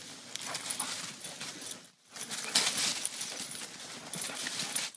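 A small dog's paws running fast over dry leaf litter as it circles a tree on its leash: a continuous rustling and crackling patter. The sound cuts out for a moment about two seconds in.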